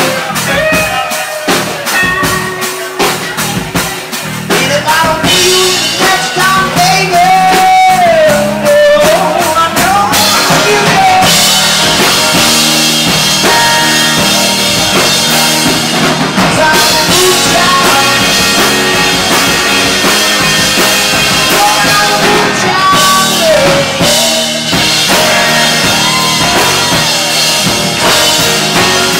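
Live rock band playing: electric guitar, bass and drum kit, with some singing. The band gets louder about five seconds in, and the cymbals fill in heavily from about ten seconds.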